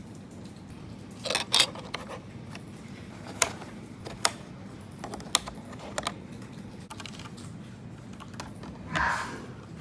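Separate key presses on an IKBC W210 wireless mechanical keyboard with linear red switches: scattered sharp clacks with pauses of about a second between them, and a softer, longer knock near the end.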